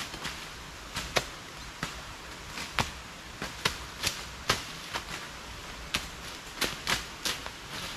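Machetes slashing through undergrowth and leaf litter: sharp, irregular strikes, about two a second, as two people clear the ground.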